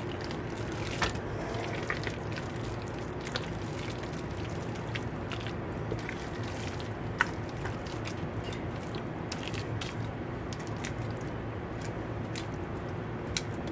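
A spatula scraping and tapping against a ceramic mixing bowl while a thick, creamy potato salad is scooped out with soft squishing, giving scattered sharp clicks, the loudest about seven seconds in. A steady low hum runs underneath.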